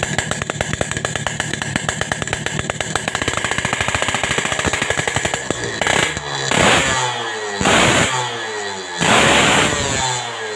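Yamaha RX-King two-stroke single-cylinder engine breathing through a Boban C20 racing muffler: idling with a fast popping beat, then, from about six seconds in, revved in four short throttle blips, each falling back toward idle.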